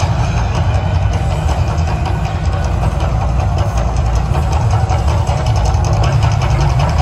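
Mirage volcano show erupting: a loud, steady deep rumbling roar with a fast crackle over it, as gas fire jets burst from the peak and across the lagoon.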